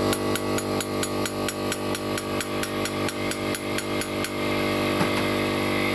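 A valve in an Italika 150 cylinder head is being hand-lapped into its seat. The suction-cup lapping stick is spun back and forth between the palms, and the valve grinds against its seat in quick, even strokes, about five a second. The strokes stop about four seconds in, over a steady background hum.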